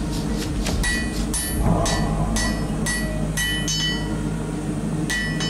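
Hammer blows on red-hot blade steel on an anvil, about two a second, each with a short metallic ring, over a steady low hum. The blows pause for about a second near the end, then two more follow.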